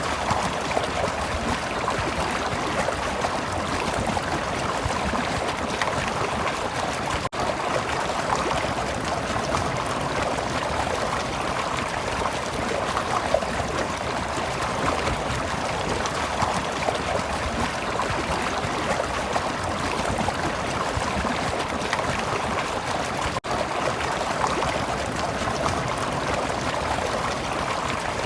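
Stream water running and trickling steadily, with a momentary dropout twice.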